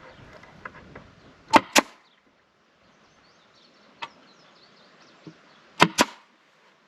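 Sharp impacts, two quick pairs of loud snaps, with a single lighter click between them.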